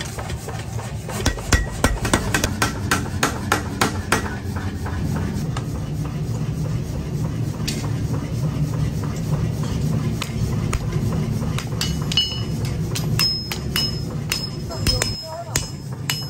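Hand hammer striking a leaf-spring steel cleaver blade on a steel anvil block, quick repeated blows for the first few seconds, then sparser strikes, then another run of blows near the end with short metallic ringing. A steady low hum runs underneath.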